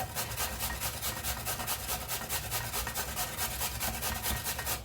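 Peeled potato rubbed quickly up and down a hand grater: a rapid, even rasping of several strokes a second that stops abruptly at the end.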